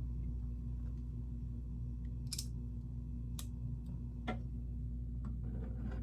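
A few sharp clicks and taps of Lego plastic pieces being handled and set in place, about three spread over a couple of seconds, over a steady low hum.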